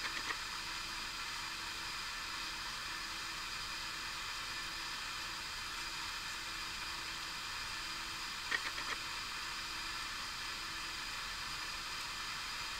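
Steady hiss of background recording noise, with a few light clicks near the start and again about two-thirds of the way through.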